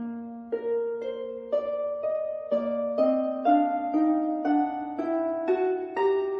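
Background music: gentle plucked-string notes, harp-like, a new note about every half second in a slow rising melody.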